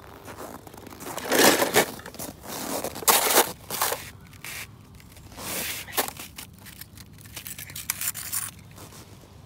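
Toy cars being handled: a series of irregular scraping and rustling noises, loudest about one and a half and three seconds in, then dying away near the end.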